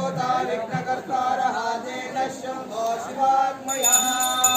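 A chanting vocal line in a music track: a voice holding and sliding between drawn-out notes.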